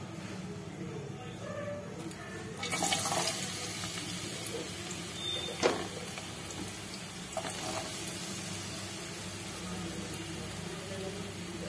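Chopped onions dropped into hot oil in a metal pot, hissing and sizzling loudly from about three seconds in and then settling to a steady fry. A single sharp clink about halfway through.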